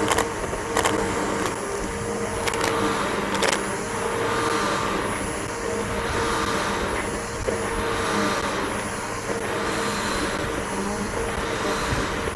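Bissell BigGreen PowerForce upright vacuum cleaner running with a steady motor whine and a rushing of air as it is pushed over grass. The noise swells and eases about every two seconds. There are a few sharp clicks in the first few seconds.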